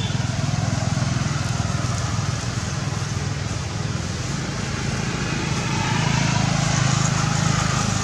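Steady low hum of a running motor engine, a little louder in the last couple of seconds.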